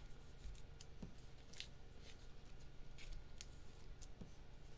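Faint, scattered clicks and rustles from hands handling trading cards and their packaging.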